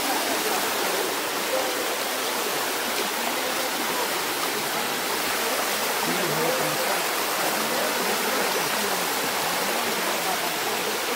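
Floodwater rushing fast and turbulent over a road it has broken through: a steady, unbroken rush of churning water.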